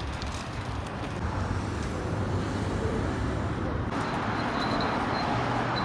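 City street ambience with road traffic running, a steady low rumble. About four seconds in it shifts to a brighter, hissier background.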